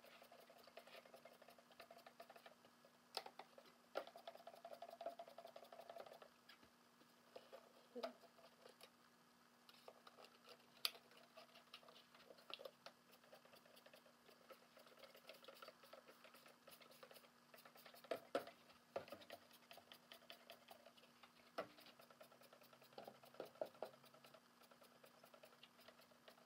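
Quiet hand work on a metal plate: scattered clicks and taps, short squirts from a trigger spray bottle of degreaser and a rag rubbing the sheet-metal base plate of a jukebox record changer, over a faint steady hum.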